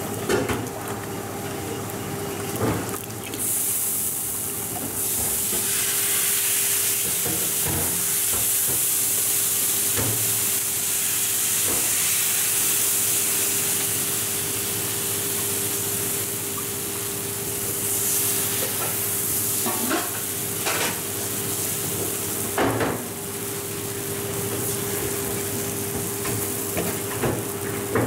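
Rava dosa batter sizzling on a hot flat griddle as it is poured on in a thin lacy layer, a loud hiss that swells a few seconds in and then eases, returning in smaller bursts. A few sharp clicks and a steady hum run underneath.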